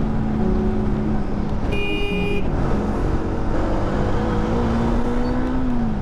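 Motorcycle engine running on the move, its note rising a little near the end and falling off at the close. About two seconds in, a vehicle horn honks once, briefly.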